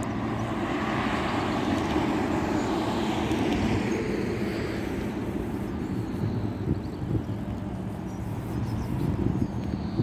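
A car driving past on the road, its tyre and engine noise loudest at first and fading away by about halfway through, leaving quieter background traffic.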